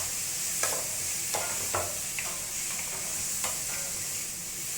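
Mashed potato being worked in a bowl with a masher or spoon: irregular short scraping, squelching strokes, a few per second at most, over a steady hiss.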